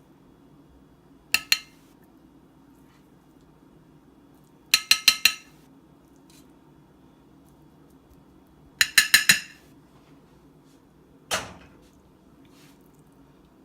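A metal spoon tapping and clinking against cookware while serving food, in short groups with a bright ring: two taps, then four quick taps, then about five, and a single duller knock near the end.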